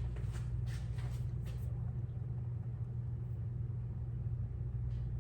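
Steady low hum, with a few faint light noises in the first second and a half and one near the end.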